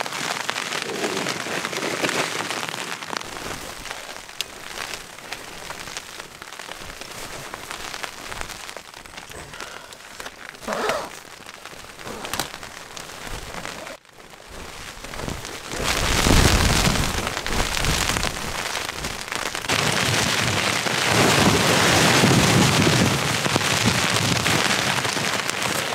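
Rain pattering on the fabric of a small tent, heard from inside, turning much heavier a little past halfway, with a low rumble as the downpour strengthens.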